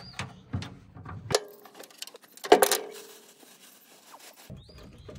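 Metal clinks and clanks as a starter motor and hand tools are handled on the truck's sheet-metal fender. A sharp clank comes about a second and a half in, and a louder one about a second later rings briefly.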